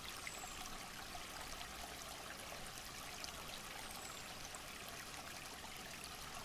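Faint running-stream ambience: water trickling steadily. Two faint, high, falling chirps sound over it, one near the start and one about four seconds in.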